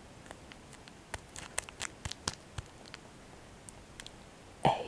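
Plastic Kit Kat wrapper handled close to the microphone: scattered small crinkles and clicks, busiest in the first half, with a brief louder sound near the end.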